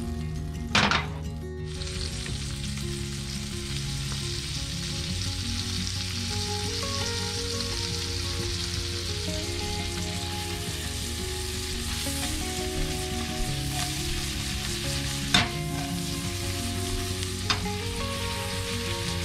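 Shrimp frying in a hot pan: a steady sizzle, with a sharp knock about a second in and two more near the end.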